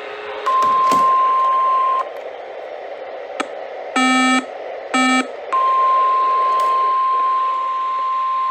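Weather radio alert tones over a hissy radio signal: a steady single-pitched alarm tone, the NOAA Weather Radio warning alarm, sounds for about a second and a half. Two short buzzy beeps follow around the middle, and then the steady alarm tone returns for about four seconds.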